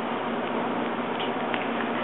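Steady background noise of an indoor tennis arena between points: a low crowd and hall murmur over a constant hum, with a few faint ticks in the second half.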